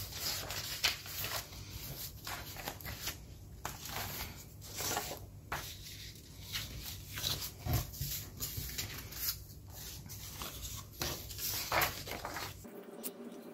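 Sheets of paper being handled: irregular rustling and swishing as pages are shuffled, lifted and laid down.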